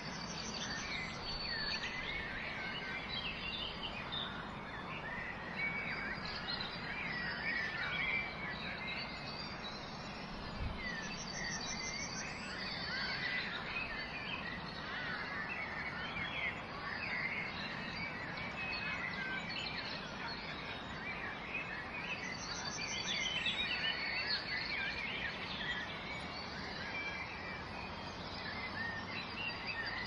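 Many small birds chirping and twittering together over a steady background hiss, with a short, high trill three times.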